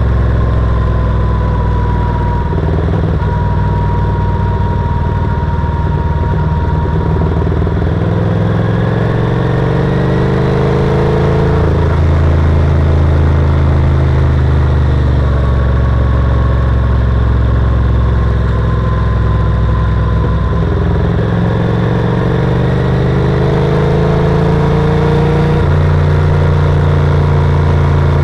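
Yamaha TRX850's parallel-twin engine running hard on the road. Its pitch climbs as the bike accelerates and drops suddenly at each upshift, once about twelve seconds in and again near the end.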